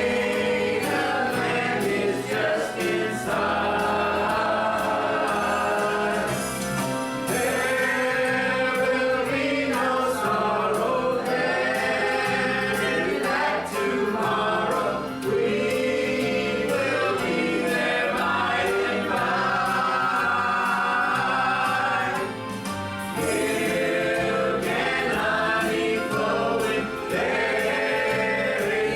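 A group of voices singing a gospel hymn in unison and harmony, with long held notes over a steady instrumental accompaniment.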